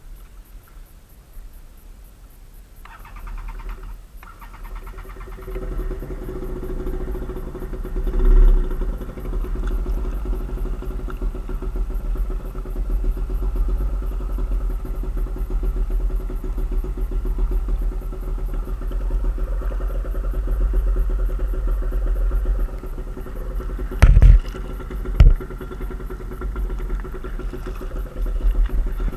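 A boat's motor comes in about three seconds in and runs steadily, with heavy wind rumble on the microphone. Two sharp knocks near the end.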